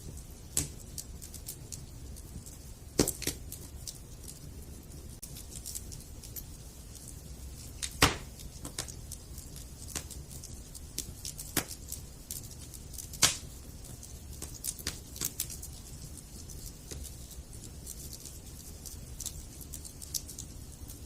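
Wood campfire crackling, with irregular sharp pops, the loudest about 3, 8 and 13 seconds in, over a faint low rumble of the burning fire.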